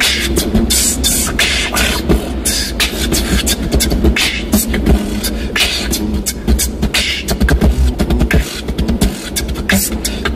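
Human beatboxing in a car: a fast, dense mouth-made drum beat of kick, snare and hi-hat sounds over a steady low hum.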